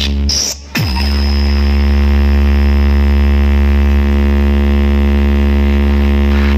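DJ speaker stack playing a sound-check track: a loud, sustained deep bass drone. About half a second in it drops out briefly with a falling pitch swoop, then holds steady again.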